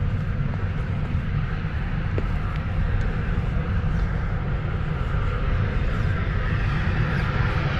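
Steady low outdoor rumble with a fainter hiss above it that grows slightly near the end.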